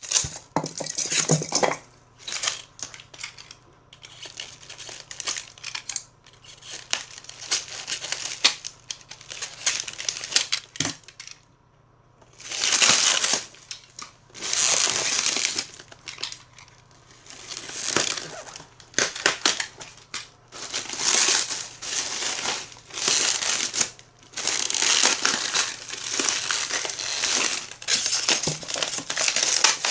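Packaging crinkling and rustling as it is pulled off and handled while a new Pioneer amplifier is unboxed, in irregular bursts of a second or two with short pauses between.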